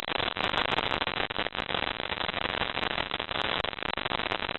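Coast Guard helicopter hovering, heard from the open cabin door: a steady rush of rotor and engine noise, with wind buffeting the microphone in a rapid, irregular crackle.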